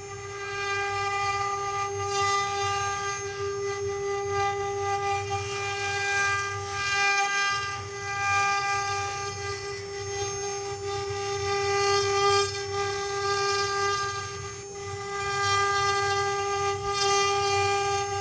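Spindle motors of a multi-head CNC wood carving machine running with a steady high whine, with a rising and falling hiss every few seconds.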